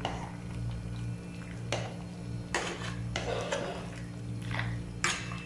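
Metal utensil scraping and clinking against a stainless steel pot while stirring chunky stew ingredients: about five short, separate strokes over a steady low hum.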